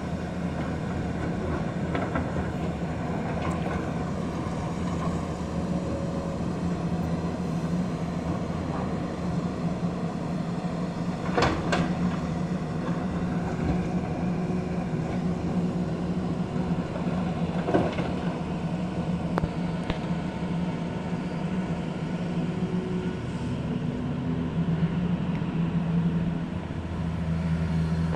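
Diesel engines of a tracked excavator and a dump truck running steadily as rock is loaded into the truck, with three sharp knocks of rock hitting the truck's steel bed, the loudest about eleven seconds in.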